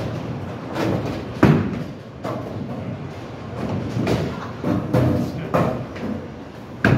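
Bowling alley lanes in play: bowling balls thudding down onto the lanes and rumbling as they roll, with several sharp knocks. The loudest knock comes about one and a half seconds in and another just before the end.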